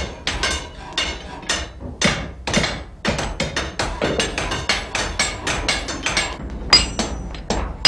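Blacksmiths' hammers striking hot iron on an anvil at a forge: a quick, irregular run of metal-on-metal blows, some with a high ring.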